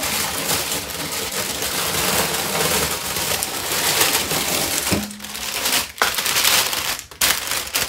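Plastic packaging crinkling and rustling loudly as a bagged, ready-to-roast chicken is handled, with a few short breaks near the end.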